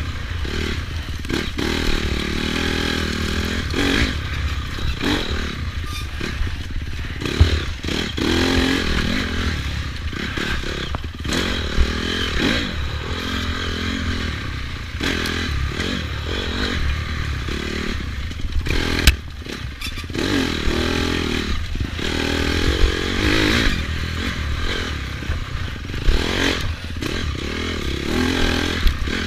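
Dirt bike engine on a trail ride, revving up and down as the throttle is worked, with the bike clattering over bumps and a few sharp knocks.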